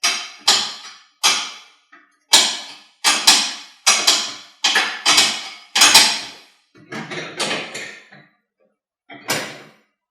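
A 5/8 wrench working a lock nut on a door bolt: a dozen or more short, sharp strokes, roughly two a second, with a pause near the end.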